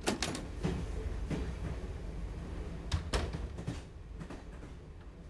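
A wooden door being opened with latch clicks, a few light knocks and steps, then the door shut with two sharp knocks about three seconds in.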